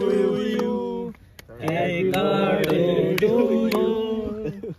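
Chanted vocal music: a voice chanting in two long phrases over a steady low held tone, with a short break about a second in.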